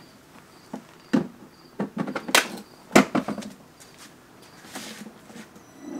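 A series of sharp clicks and knocks as a 6 Ah Ryobi 18V battery pack is seated in a Ryobi 18V cordless lawn mower's battery compartment and the compartment is closed, the loudest knocks about a second, two and a half and three seconds in.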